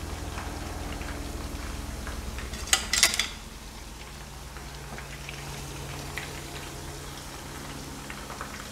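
Hot oil bubbling and crackling steadily around shrimp and sweet potato fritters deep-frying in a pan, during the first of two fries. A short clatter comes about three seconds in.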